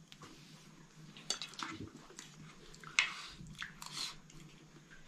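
A person eating with a metal spoon: chewing, with a couple of sharp clicks of the spoon on the plate, one about a second in and one near the middle.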